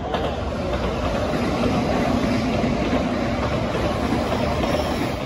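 A train running past on rail track: a steady rumble that swells at the start and eases off near the end.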